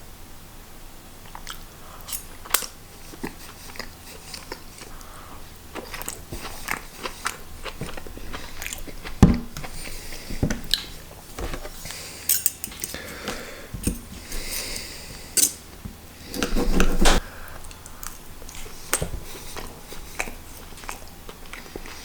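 A person chewing and biting a mouthful of microwave-meal food, with scattered small clicks and a few louder knocks.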